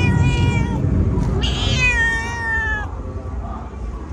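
A cat meowing twice: one meow ending shortly after the start, then a longer meow about a second and a half in that falls slightly in pitch, over a steady low background rumble.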